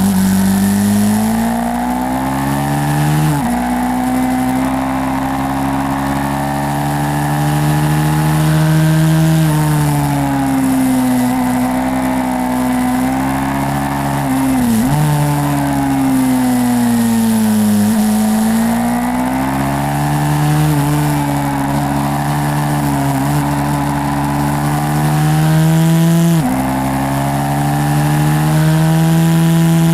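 Small single-cylinder pit-bike engine of a YCF 150 SM ridden hard, its pitch rising and falling as the rider opens and closes the throttle. Three times it climbs and then drops suddenly at an upshift.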